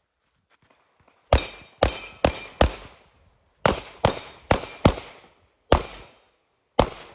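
Rapid pistol fire from a 9mm Walther Q5 Match SF: about ten loud, sharp shots in quick pairs and strings of up to four, with pauses of about a second between strings.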